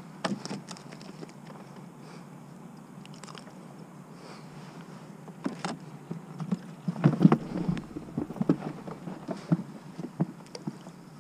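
Irregular knocks and clicks of handling on a plastic fishing kayak, bunched between about six and ten seconds in, over a low steady hum.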